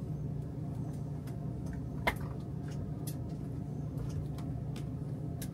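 Steady low hum of an idling forklift engine holding the load, with scattered light clicks and knocks from the lifting chain and the hanging engine as they are guided by hand, the sharpest click about two seconds in.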